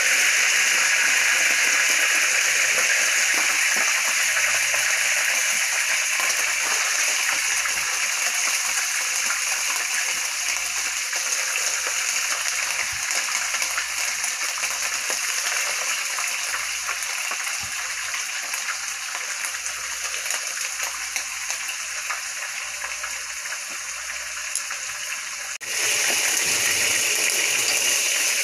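Seasoned cube steaks frying in hot oil in a pan: a steady sizzling hiss that eases off gradually. Near the end it comes back fuller, along with a pot boiling hard beside it.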